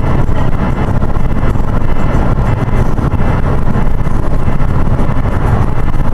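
Steady low rumble of a car driving at highway speed: road and engine noise heard from inside the cabin.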